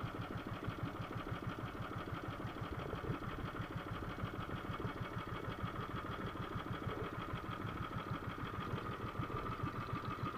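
Small outrigger boat engine idling steadily, a fast even chugging.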